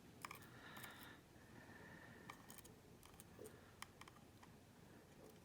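Near silence with a few faint, scattered clicks of small lock parts (pins and springs) being handled.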